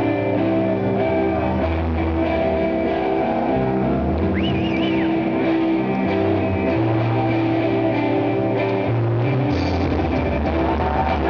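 Rock band playing live and loud, with electric guitar over held bass notes that change every second or two, and drums. A brief wavering high note sounds about halfway through.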